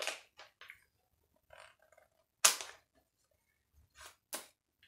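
Plastic packet crinkling and rustling as it is torn open by hand, in short sharp crackles with one loud rip about two and a half seconds in.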